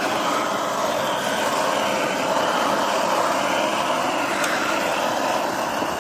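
Hose-fed gas torch burning steadily with an even, rushing hiss as it heats a small copper bowl to melt tin for hand tinning.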